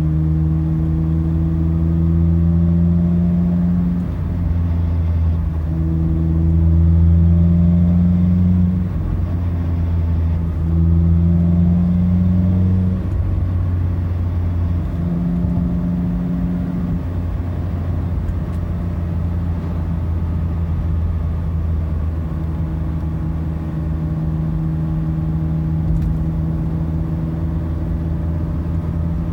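2016 Mazda MX-5's four-cylinder engine with an aftermarket exhaust, heard in the cabin while the throttle is repeatedly applied and lifted around 2,000–3,000 rpm: the engine note rises and drops back in several cycles over the first half, then holds fairly steady. The throttle work is meant to bring out a metallic scraping, like a metal rake on concrete, that occurs on engine braking just below 3,000 rpm.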